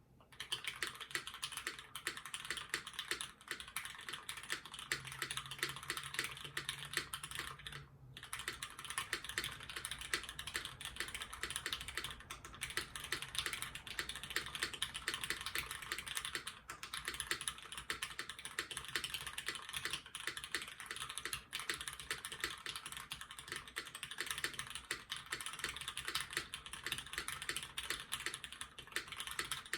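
Custom mechanical keyboard with lubed vintage Cherry MX Black switches on an aluminium plate and GMK keycaps, typed on quickly and continuously as a string of dense key clacks, with a brief pause about eight seconds in.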